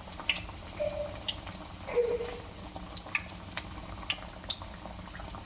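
Chicken shami kababs frying in hot oil: a steady sizzle with scattered, irregular pops and crackles.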